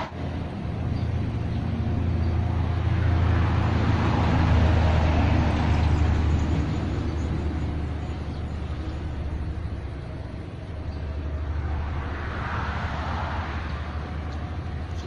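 Road traffic passing: a low engine hum swells over the first few seconds and fades, then another vehicle passes about twelve seconds in.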